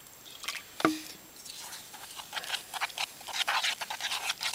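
A little water trickles from a bottle into flour, then a single sharp knock with a brief ring about a second in. After that comes quick, irregular scraping and rubbing as bannock dough is stirred in a metal camp pot.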